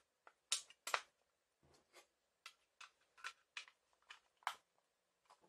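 About a dozen short plastic clicks and taps, irregularly spaced, the sharpest about half a second and a second in, as an AA battery is seated in a Jelly Comb wireless mouse and its plastic top shell is pressed back on.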